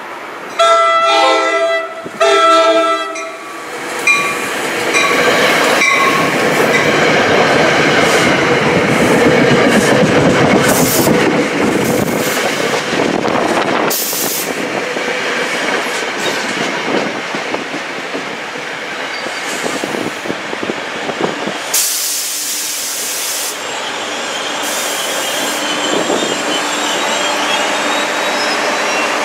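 Commuter train passing close by. Its horn sounds two blasts about a second in, then the coaches roll past with clickety-clack and wheel noise. Near the end the ALP-45DP dual-mode locomotive pushing at the rear goes by with a loud hiss and the steady drone of its diesel engine.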